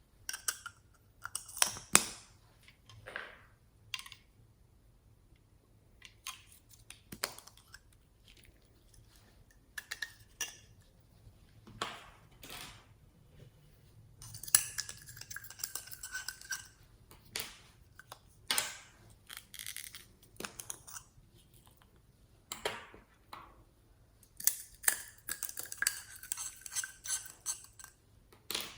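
Clinks, clicks and clatter of small containers and utensils being handled, with a couple of longer scraping stretches, about halfway and near the end, while ingredients are mixed into slime.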